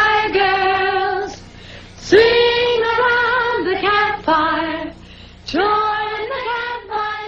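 Female singing: a song sung in three long phrases with short breaks between them, the notes held and bending slightly in pitch.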